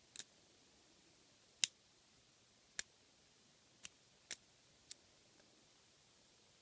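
Sharp metallic clicks from a lock pick and tension tool working the pins of a five-pin euro cylinder lock: about six irregular clicks, the loudest about a second and a half in.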